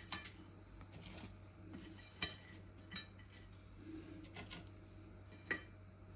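Kitchen utensils and plates clinking and knocking lightly as food is handled and plated: about half a dozen separate taps, the loudest near the end.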